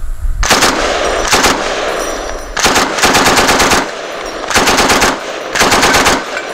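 M60 belt-fed machine gun in 7.62×51 mm firing a string of short bursts of automatic fire, with brief pauses between the bursts.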